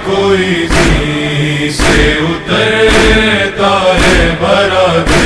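Male voices chanting a noha refrain in chorus, with a rhythmic chest-beating (matam) stroke about once a second keeping time.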